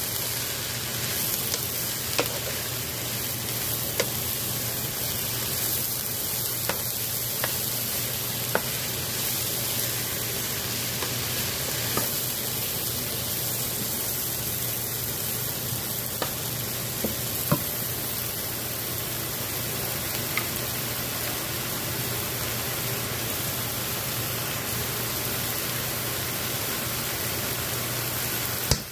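Sliced mushrooms, spinach, bell peppers and onion sizzling steadily in oil in a frying pan as they are stirred with a wooden spoon, with occasional short taps and scrapes of the spoon against the pan.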